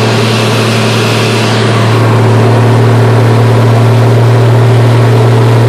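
Military cargo truck's engine running steadily as the truck drives off-road, a loud low drone that grows a little louder about two seconds in.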